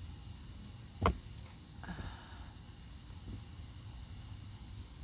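Crickets trilling steadily at a high pitch, with one sharp click about a second in and a brief soft rustle just after.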